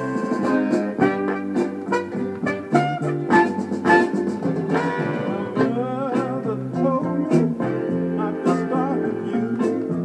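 Soul record playing from a spinning vinyl 45 single: an instrumental break between verses, with guitar over a steady drum beat.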